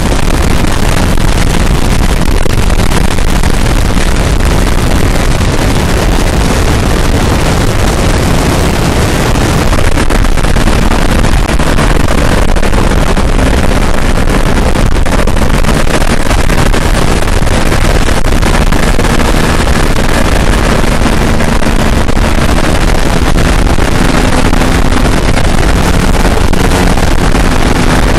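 Open-cockpit Breezy homebuilt plane in flight: its pusher piston engine and propeller running steadily under heavy wind rush on the microphone, loud throughout, with the engine note shifting slightly after about ten seconds.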